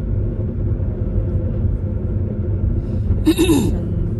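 Steady low rumble of a car's tyres and engine heard while driving, with one brief sharp sound with a falling pitch a little over three seconds in.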